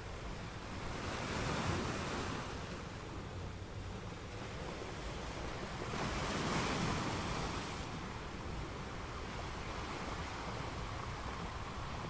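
Small ocean waves breaking and washing up a sandy beach, the surf swelling twice, about five seconds apart.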